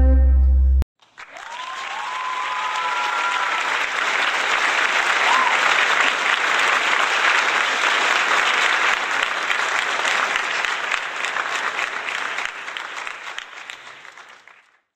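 A held chord of background music cuts off under a second in; then a crowd claps and cheers with a few whistles, swelling up and then dying away near the end.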